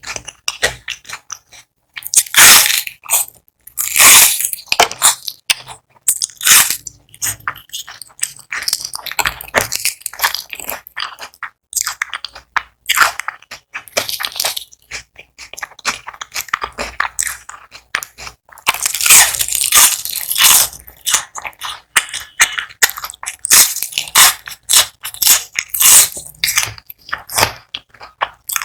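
Close-miked eating of crispy fried onion rings: loud crunchy bites followed by rapid, irregular chewing crackle. Biggest bites come about two and a half and four seconds in, and again around twenty seconds.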